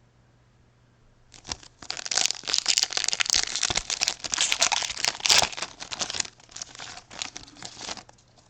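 Wrapper of a trading-card pack being torn open and crinkled by hand, a dense crackling with many sharp crackles that starts about a second and a half in and dies away near the end.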